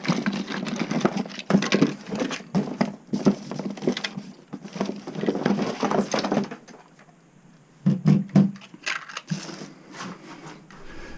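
Hands rummaging through a cardboard box of bagged cables and parts: cardboard and plastic packaging rustling and crackling, with short knocks and clatters. It dies down about six and a half seconds in, and a few more brief handling noises follow near the end.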